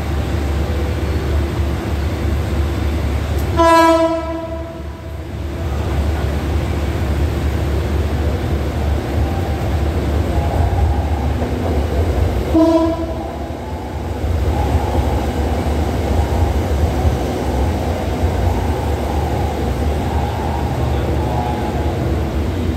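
SRT Red Line electric commuter train approaching and running past, sounding its horn twice: a half-second blast about four seconds in and a shorter one around twelve seconds in, over the steady rumble of the train on the rails.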